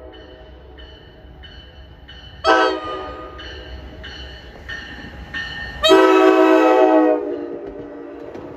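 An NJ Transit MultiLevel cab car's horn sounding as the train approaches: a short blast about two and a half seconds in, then a longer, louder blast about six seconds in. After that comes the running rumble of the double-deck coaches passing close by.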